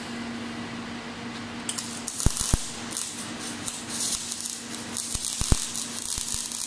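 MIG welding arc from a Power MIG 500 crackling and hissing from about two seconds in, with a few sharp pops, over a steady low hum. The voltage is turned down for 1.5 mm sheet.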